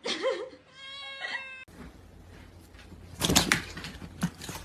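A cat meowing: one drawn-out meow whose pitch wavers at the start and then holds. It cuts off abruptly about a second and a half in, giving way to a steady noisy background with a few sharp knocks and clatter, the loudest about three seconds in.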